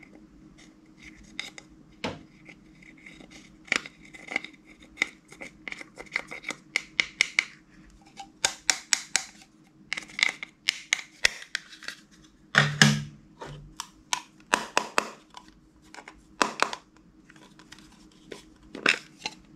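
Slime being squished and stretched by hand, giving irregular runs of sharp, sticky clicks and crackles, loudest about two-thirds of the way in.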